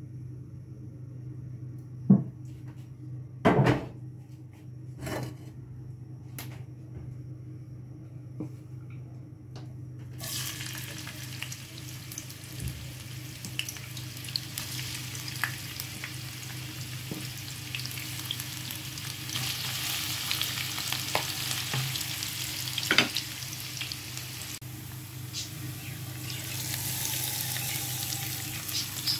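Chopped onions frying in hot oil in a non-stick pan: a steady sizzle that starts suddenly about a third of the way in, with occasional stirring clicks. Before the sizzle there are only a few sharp knocks over a low steady hum.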